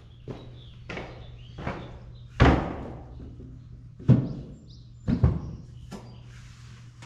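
A few heavy thumps over a steady low hum: the loudest about two and a half seconds in, then two more about four and five seconds in, each ringing on briefly.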